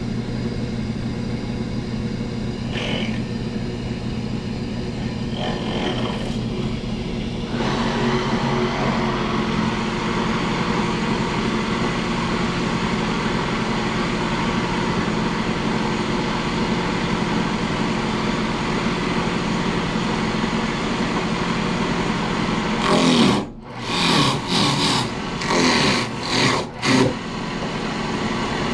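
A motor-driven cutting machine with blades running steadily. Its sound grows rougher and louder about eight seconds in. Near the end it turns uneven, with several short loud bursts and dips.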